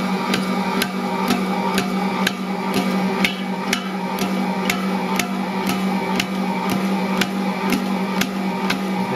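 Ankarsrum Assistent Original stand mixer running at a raised speed setting, kneading a 1 kg bread dough with its roller and scraper: a steady motor hum with a knock about twice a second as the dough is flung and slapped around the rotating bowl.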